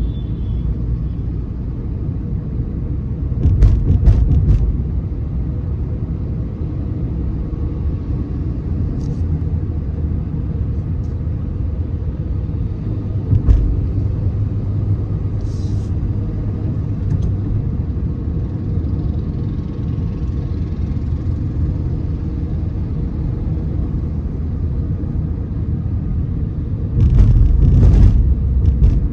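Car driving on a city road, heard from inside the cabin: steady low road and engine rumble, with louder stretches of rumbling clatter about four seconds in and near the end, and a brief knock around the middle.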